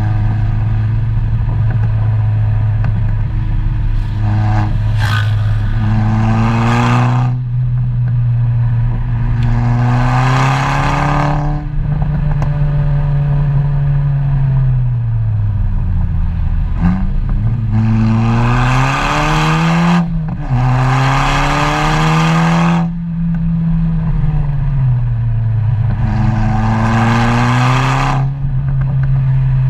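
Car engine accelerating hard and lifting off again and again, its note climbing and dropping, with a harsher, louder rasp on each of about five pulls.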